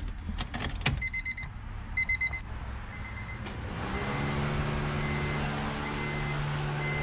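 Ignition key clicks, then the car's warning chime beeps about once a second. A few seconds in, the Honda Civic's electric radiator cooling fan spins up with a rising hum and settles into a steady run. The fan runs on key-on alone because its thermostat-housing fan switch has been bypassed with a jumper wire.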